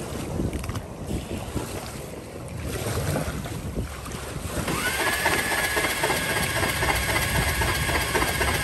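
Wind buffeting the microphone over lapping shallow water. About five seconds in, a steady high mechanical whine from a small motor starts and holds.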